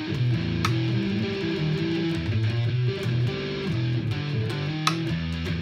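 Fender Stratocaster electric guitar played through a Line 6 POD HD500X multi-effects processor: sustained notes and chords that change every half second or so. Two sharp clicks cut through, about half a second in and near the end.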